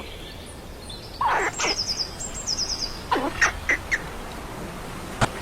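Squirrel calling: a few short squeaky chirps and a quick run of high-pitched chirps in the first four seconds, then a single click.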